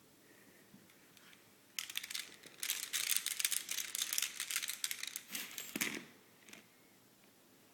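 Chew toy being chewed: a dense run of rapid crackling and crinkling clicks that starts about two seconds in and stops about six seconds in.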